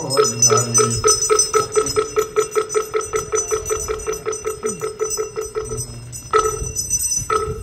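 A moktak (Korean wooden temple block) struck in a fast, even run of strokes that stops about six seconds in, followed by two single strokes.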